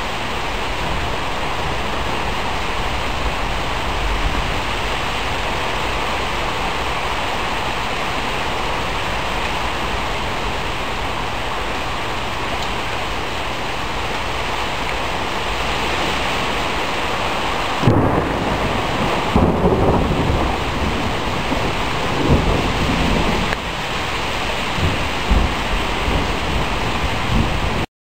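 Rain falling steadily, a continuous hiss. About eighteen seconds in, a sudden thunderclap breaks in, followed by rolling thunder that swells again several times. The sound cuts off abruptly near the end.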